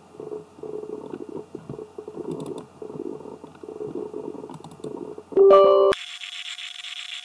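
Faint computer mouse clicks over a steady low rumble. About five seconds in comes a loud, brief chime of several tones, then a hiss with a steady tone.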